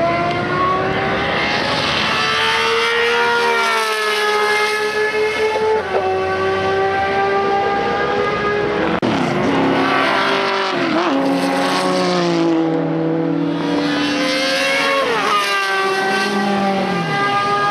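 Matra 670's 3-litre V12 racing engine at high revs, climbing in pitch under acceleration and falling back several times at gear changes and as it lifts through corners.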